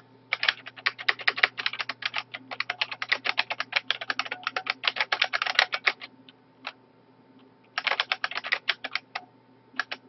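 Typing on a computer keyboard: quick runs of keystroke clicks, with a pause of about a second and a half after the middle before the typing resumes.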